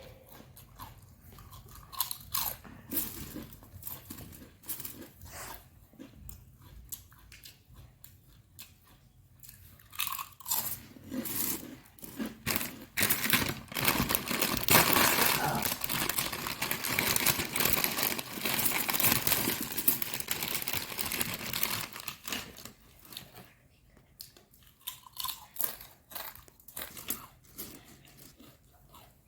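Close-miked eating: a person biting, crunching and chewing crunchy food, with a louder, denser run of crunching in the middle.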